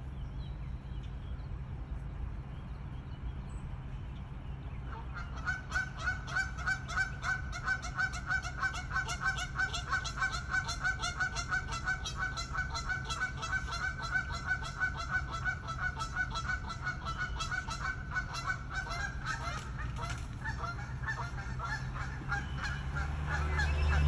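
Geese honking in a long, rapid series of calls, about three a second, starting about five seconds in, over a steady low rumble.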